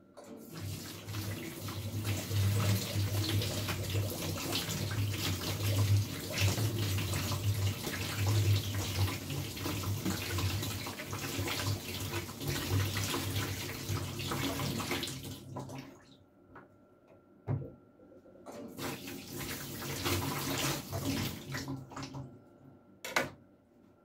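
Kitchen tap running into a stainless steel sink while a pear is rinsed under it by hand. The water stops a little past halfway, runs again briefly, and there is a single knock near the end.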